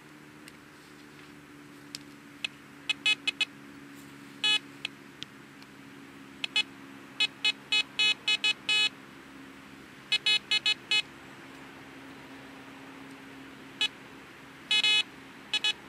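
Metal detector giving short electronic beeps in clusters of several quick beeps, with pauses between the clusters, as it responds to a small metal target in the sand being searched by hand. A steady low hum runs underneath.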